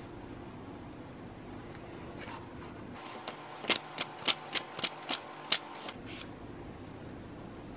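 Pages of a paperback book being handled and turned, with a quick run of about a dozen sharp paper ticks in the middle, over a steady low room hum.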